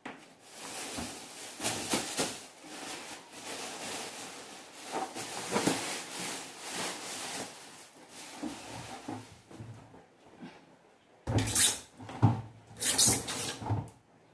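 Plastic bags rustling as they are handled. Near the end come several loud knocks and scrapes as a plastic trash bin, capped with an upturned plastic basin, is pushed into place on a tiled floor.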